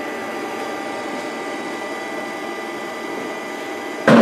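EGO 56-volt battery charger's cooling fan running steadily with a faint high whine while it charges the battery. A sudden loud knock near the end.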